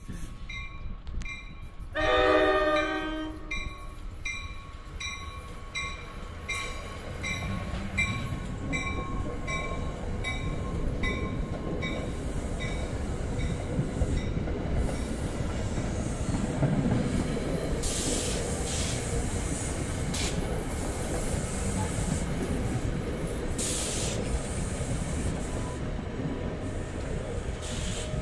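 Grade-crossing bell ringing steadily about twice a second, a train horn blast about two seconds in, then an NJ Transit train of Comet coaches rumbling past the crossing, the bell fading out partway through.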